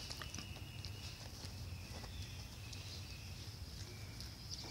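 Quiet outdoor background: a steady low rumble and a high hiss, with a few short faint chirps and soft ticks.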